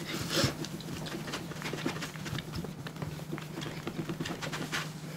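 A cleaning cloth rubbing and wiping across a tablet's freshly applied screen protector: a run of soft scratchy swishes with small taps, over a steady low hum.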